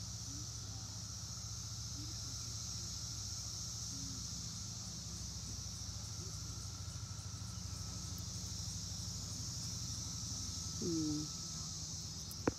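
Steady, even chorus of periodical cicadas, a high droning hiss with a fainter lower whine. A low steady rumble lies underneath; about eleven seconds in comes a brief low vocal sound, and a sharp click near the end.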